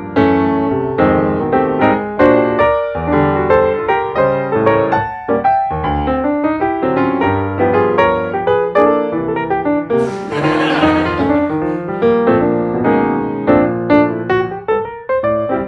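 Piano music with quick, busy runs of notes. About ten seconds in, a brief hissing whoosh lasting about a second plays over it.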